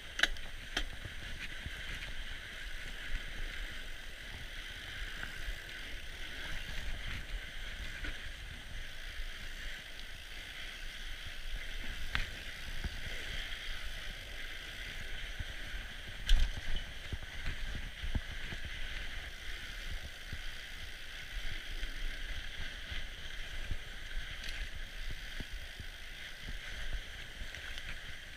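Fat-bike riding noise on packed snow: a steady hiss of the wide tyres and drivetrain rolling over the trail, with uneven low rumbling from bumps, a few clicks and a sharp knock about 16 seconds in.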